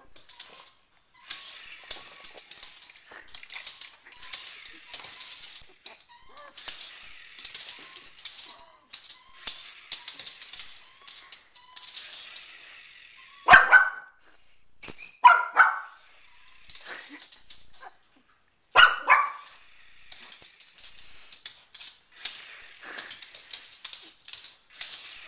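A small dog barks sharply four times about halfway through: three barks close together, then one more a few seconds later. Softer rustling noises come and go before and after.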